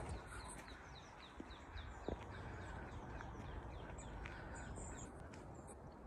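A small songbird singing a rapid run of short, falling notes, about three a second, fading out after about four seconds, over a low background rumble.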